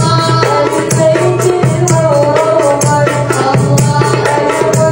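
Sholawat, an Islamic devotional song, sung by a group of female voices into microphones, accompanied by jingling hand tambourines and the steady beat of a darbuka hand drum.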